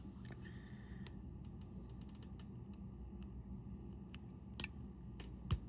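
Light clicks and taps of small tools handling a watch module, with one sharper click a little over four and a half seconds in.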